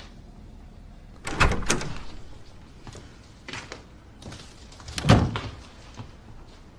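A door being handled: a few knocks and thuds, the loudest about five seconds in.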